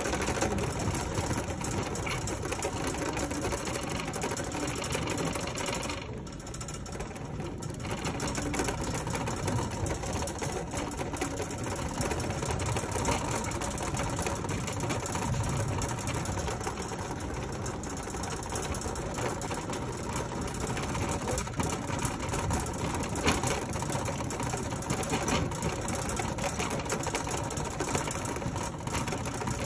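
Red plastic shopping cart rattling on a hard store floor as it is pushed along: a steady, rapid clatter that eases off for a second or two about six seconds in.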